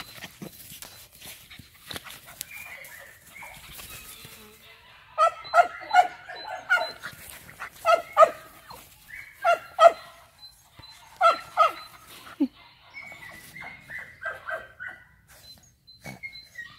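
A dog barking in clusters of two to four short barks, starting about five seconds in and repeating about every second and a half, followed near the end by a run of softer, higher yips.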